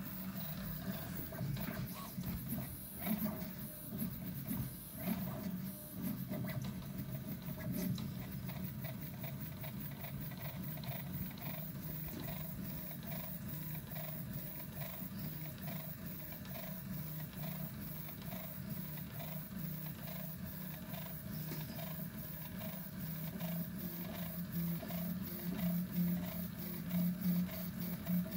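Prusa i3 MK3 3D printer with a Skelestruder extruder and E3D Volcano hotend printing fast, its stepper motors buzzing and whining in shifting tones as the print head shuttles back and forth laying down the first layer. It gets a little louder near the end.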